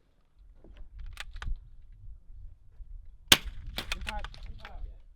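.22LR rimfire rifle firing a single sharp shot a little past halfway through, over low wind rumble on the microphone, with a few lighter clicks around it.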